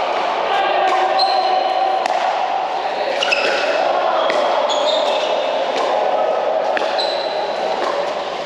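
Pickleball paddles hitting a plastic pickleball again and again through a rally, sharp pops several of which ring with a short high ping. Beneath them runs the steady din of a busy indoor hall.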